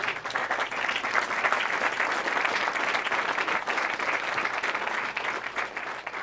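Audience applauding: dense, steady clapping that starts suddenly and begins to thin out near the end.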